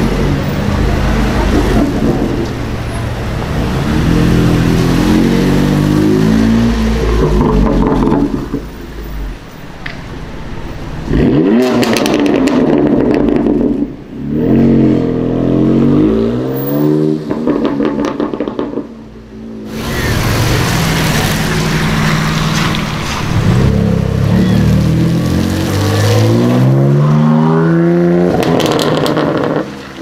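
BMW M4 twin-turbo straight-six accelerating hard several times, its note climbing and dropping back through the gear changes. The exhaust crackles and pops when the throttle is lifted.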